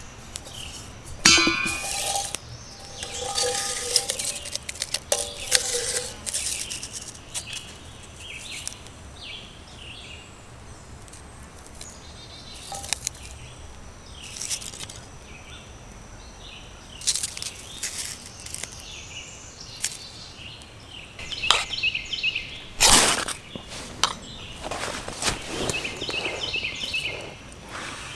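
Metal clinks from a stainless steel container as charred wood is tipped out and handled, with birds chirping in the background. Near the end come a few sharp scrapes and strikes: a steel or ferro rod struck to throw sparks onto the char cloth material and catch an ember.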